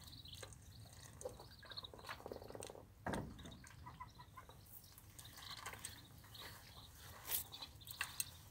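Madagascar teal ducklings and an adult teal feeding from a metal bowl of dry food: faint scattered clicks of bills pecking in the bowl, with short soft chirp-like calls. There is a single louder thump about three seconds in.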